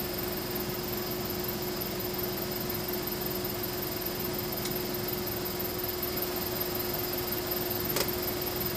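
Steady hiss with a low, even hum, and one sharp click near the end.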